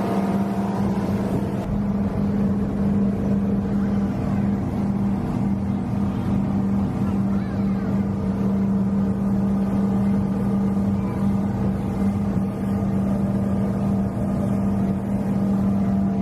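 Speedboat engine running steadily under way, a constant low drone that does not change in pitch, with the rush of water and air underneath.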